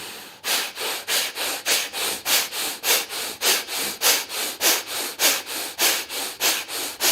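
Bhastrika pranayama (bellows breath) through both nostrils: rapid, forceful nasal inhalations and exhalations in an even rhythm of about three strokes a second, each a short rush of air.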